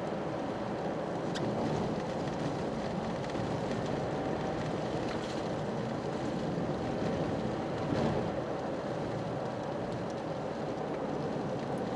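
Steady driving noise of a Toyota GR Yaris: tyre rumble from Nankang ESSN-1 studless tyres on a winter road, with the engine running evenly underneath and a few faint ticks.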